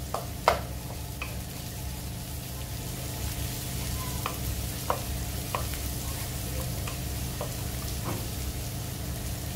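Chopped onion, garlic and ginger sizzling in a nonstick wok as they are sautéed toward golden brown, stirred with a wooden spatula that gives scattered light taps and scrapes against the pan, the sharpest knock about half a second in. A steady low hum runs underneath.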